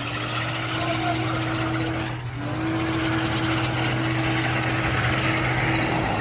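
Car engine held at high revs as the car spins its tyres, with a brief drop in revs about two seconds in.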